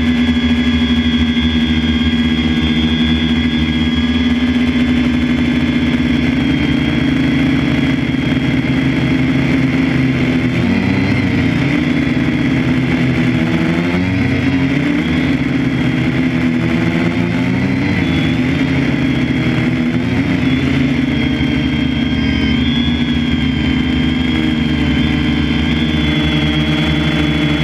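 A motor running steadily and loudly. For several seconds in the middle its pitch rises and falls.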